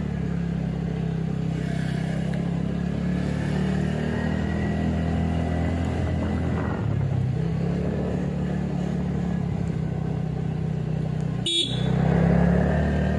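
Motor vehicle engine running steadily while driving, its note shifting about seven seconds in. There is a sudden brief break in the sound near the end, after which it is a little louder.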